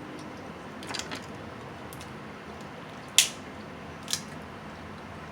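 Snow crab shell being cracked and snapped apart by hand: a few short clicks about a second in, one loud sharp crack about three seconds in, and a smaller crack just after four seconds.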